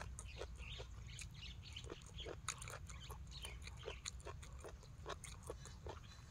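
Close-up eating sounds: chewing and lip-smacking with many small irregular clicks, as apple snail heads from a papaya salad are chewed.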